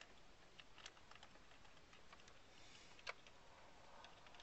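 Near silence with a few faint, scattered clicks and taps, the clearest about three seconds in.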